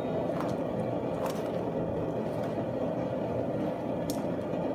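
Gas forge burner running with a steady rushing noise, and a few faint light metal clicks over it.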